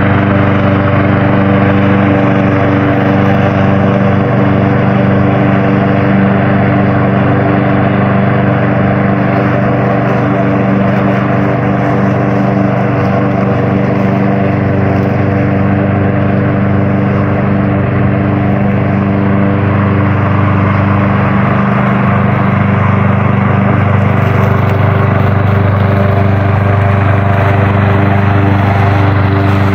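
Engine of an autopilot-driven lawn mower running steadily at a constant speed.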